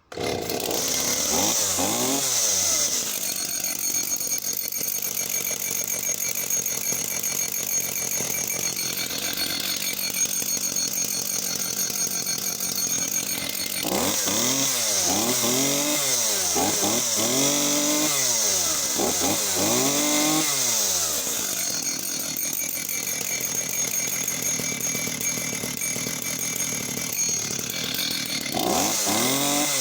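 Solo 654 54cc two-stroke chainsaw engine fires up and runs, revved up and down, settling to idle, then blipped through a run of quick throttle revs in the middle before idling again and revving near the end.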